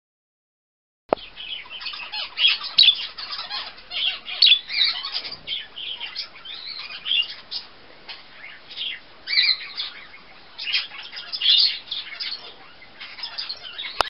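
Budgerigar chirping and chattering in many short, sharp calls, starting abruptly about a second in.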